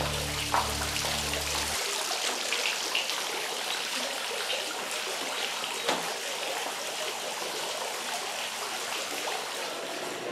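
Tiered stone fountain splashing steadily. Low sustained music tones stop about two seconds in.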